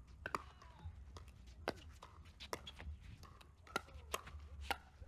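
Pickleball rally: sharp pops of paddles striking a hard plastic pickleball and the ball bouncing on the hard court, about six at uneven spacing.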